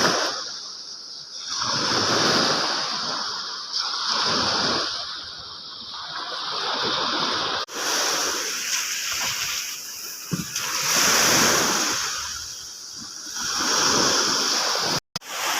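Shallow seawater splashing and sloshing in swells that come and go about every two seconds, over a steady high hiss.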